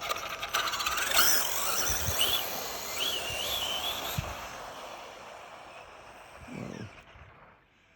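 High-speed RC car on a speed run, its motor and tyres giving a loud, wavering whine that rises in pitch during the first few seconds, then fades out over several seconds.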